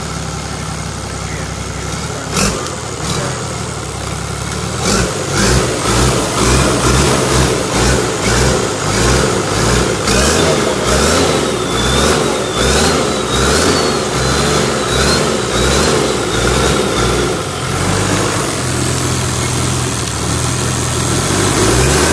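Engine idling steadily, then from about five seconds in revved up and down in quick repeated blips, settling back to a steadier run near the end.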